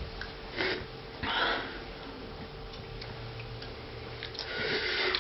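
A few short sniffs and breathy exhales from a person, with scattered faint ticks.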